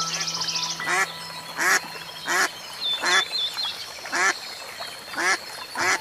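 Duck quacking, seven separate quacks about a second apart, beginning about a second in.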